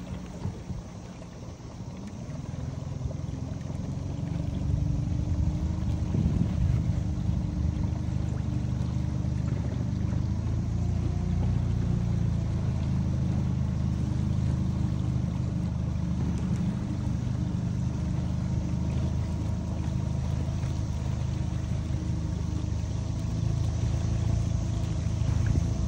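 Small outboard motor on a tender running under way. It gets louder over the first few seconds as it picks up speed, then runs steadily.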